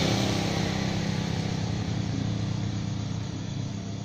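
A motor vehicle engine running with a steady low drone, slowly growing quieter.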